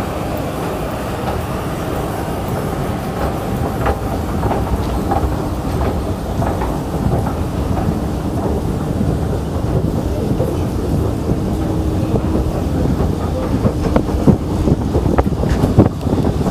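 Prague Metro train running through a tunnel: a steady rumble of wheels on rail, with clattering clicks and knocks that get louder and come more often in the last few seconds.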